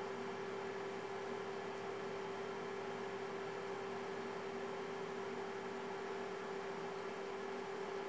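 A steady electrical hum at one unchanging pitch over a constant hiss.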